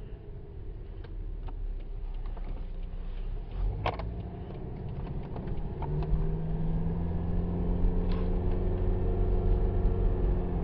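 2011 Subaru Legacy driving along a road, heard from inside the cabin: steady engine and road rumble that grows louder about six seconds in, with a few light clicks and knocks.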